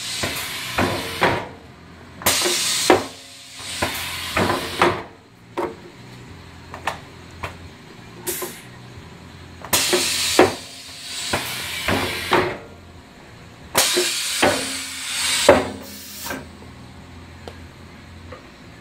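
Pneumatic cycling of a Northtech CFS-18R upcut cut-off saw: compressed air hisses out of the cylinder and valves in several bursts, each about a second long, mixed with metallic clunks and clicks as the saw cycles.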